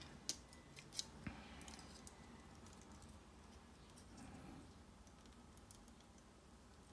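Faint clicks and taps of an action figure's parts and weapon being handled and fitted together: a few sharp clicks in the first second and a half, then near silence.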